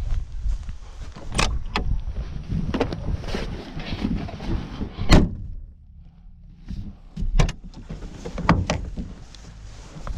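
A series of sharp clunks and knocks from the body of a Lada 2106 being handled, the loudest about five seconds in, over a low rumble that drops away about a second later.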